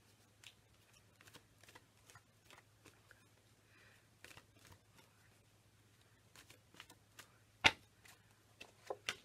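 A deck of Angel Oracle cards being shuffled by hand: a run of soft card flicks and taps, with one sharp, louder card slap a little over three-quarters of the way through. A faint steady low hum runs underneath.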